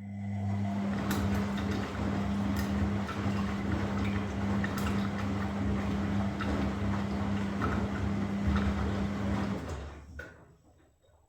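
Washing machine with water rushing through it over a steady electric hum for about ten seconds, then the flow and hum stop, followed by a couple of short clicks.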